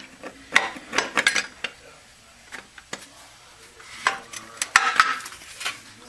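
Internal steel parts of a 6R80 automatic transmission clinking and rattling against each other and the aluminium case as they are worked into place by hand. The clinks are irregular and sharp: a cluster about a second in, a single click near three seconds, and another cluster around four to five seconds in.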